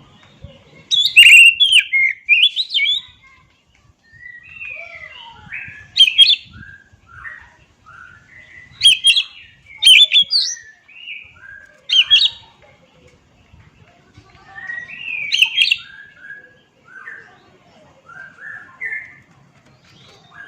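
Oriental magpie-robin singing a varied song. Loud, sharp, high whistled phrases come every few seconds, with quieter warbled and chattering notes between them.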